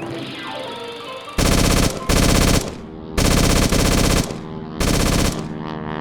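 Four bursts of rapid machine-gun fire, the third the longest, over steady background music.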